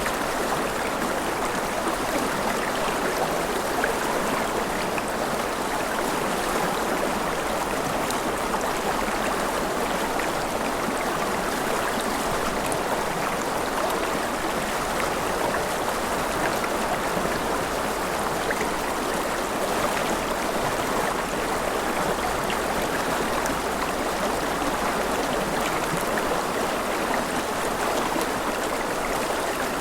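Mountain river running over rapids: a steady, unbroken rush of water.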